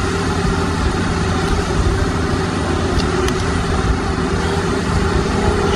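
An engine running steadily, a constant low hum that holds one pitch, with a couple of faint clicks about three seconds in.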